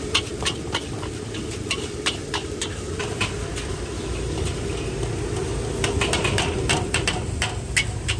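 Metal utensils clinking and scraping irregularly against a cooking pan, with a steady low rumble beneath.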